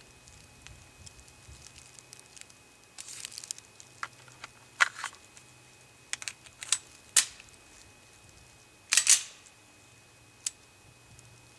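A scattered run of sharp metallic clicks and clacks from handling a Beretta 92FS pistol fitted with a SilencerCo Osprey 9mm suppressor. The loudest and longest clack comes about nine seconds in.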